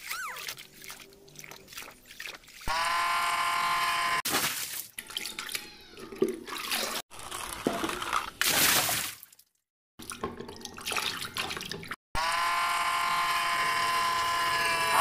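Water splashing and sloshing as hands scrub plastic toy vehicles in a basin of soapy water, cut together with two stretches of a steady electronic tone and a brief gap of silence near the middle.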